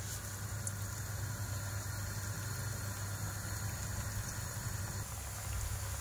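Chopped onions frying in melted butter in a steel pot on a gas hob, sizzling and bubbling steadily over a constant low hum.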